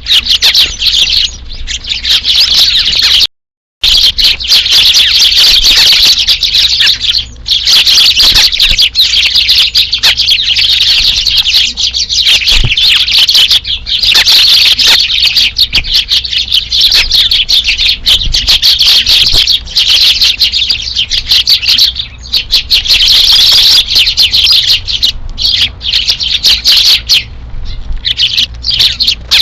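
A flock of Eurasian tree sparrows chirping continuously, many short overlapping chirps. The sound cuts out completely for about half a second a little over three seconds in.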